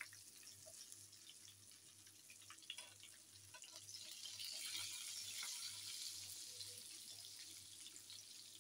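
Breaded goat chops deep-frying in hot oil: a faint sizzle with small crackles, swelling about three and a half seconds in as the chops are turned over and their raw sides go into the oil.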